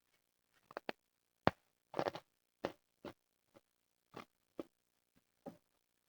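Freezer frost being bitten and chewed: a string of separate crisp crunches with short silences between, about ten in all, the sharpest about a second and a half in and a quick cluster of crunches just after.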